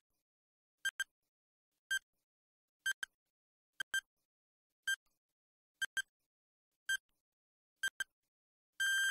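Quiz countdown timer sound effect: short high beeping ticks about once a second, many in quick pairs, then a long steady beep about a second long near the end as the countdown runs out.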